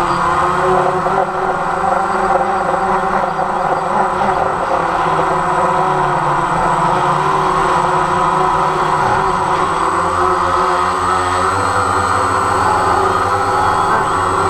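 DJI Phantom quadcopter's electric motors and propellers buzzing in flight, a steady multi-pitched whir whose tones drift up and down slightly as the motors work to hold the craft in strong wind.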